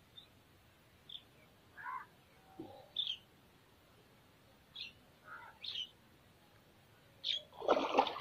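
Scattered short bird chirps, then near the end a loud splashing as the hooked singara catfish thrashes at the water's surface on the hand line.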